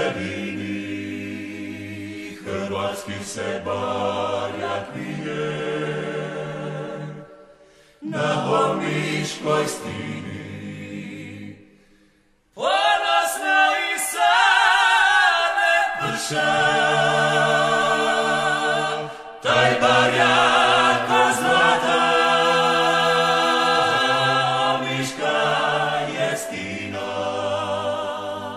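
Male vocal group singing a cappella in Dalmatian klapa style. Long held chords with vibrato come in phrases, with short breaks about seven and twelve seconds in.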